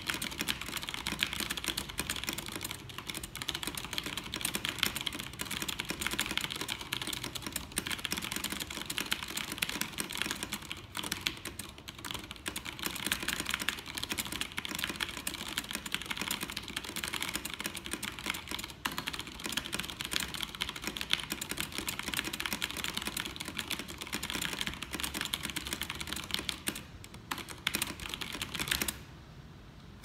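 Very fast typing on an iKBC CD87 mechanical keyboard with Cherry MX Brown switches (tactile, non-clicky): a dense, continuous clatter of keystrokes that stops about a second before the end.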